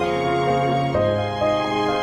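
Slow, gentle background music of held notes, with the chord changing about a second in.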